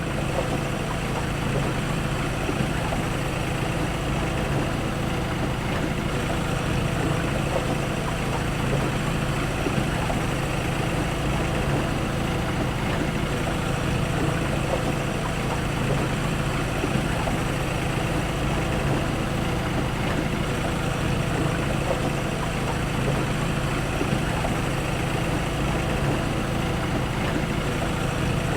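A fishing boat's engine running steadily, an even, unbroken drone.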